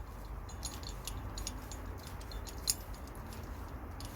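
Light clicks and clinks of small metal mounting-kit parts being handled, with one sharper click about two and a half seconds in, over a low steady hum.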